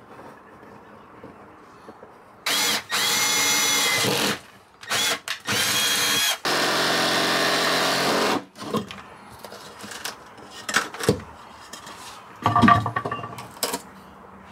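A compact cordless jigsaw cuts a rectangular opening through a thin plywood wall panel. It runs in several bursts of a few seconds each, between about 2.5 and 8.5 seconds in. Light knocks and scrapes follow.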